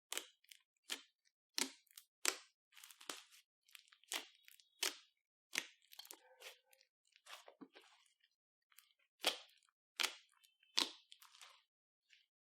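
Slime being squished and mixed by hand, giving sharp crunchy pops and crackles at irregular intervals, about one or two a second, stopping shortly before the end.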